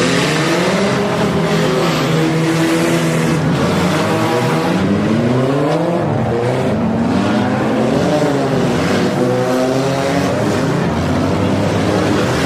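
Several demolition derby car engines running at once, revving up and down so their pitches rise and fall across each other.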